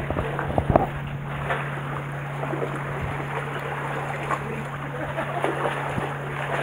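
Sea water washing among concrete tetrapods, with wind on the microphone, over a steady low hum. There are a few light clicks in the first second.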